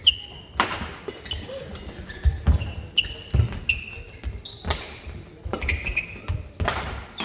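Badminton rally: sharp racket strikes on the shuttlecock about every two seconds, with heavy footfalls and short high-pitched shoe squeaks on the court floor between them.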